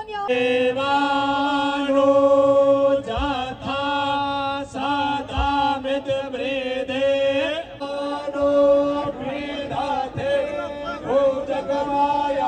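Devotional chanting by male voices in long held notes, phrase after phrase, with short gliding turns between the notes.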